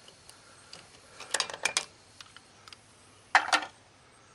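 Metal clicks and clinks of a ratchet and socket on the lug nuts of a dually truck's rear wheel. They come in two short clusters, about a second in and again near the end, the second louder.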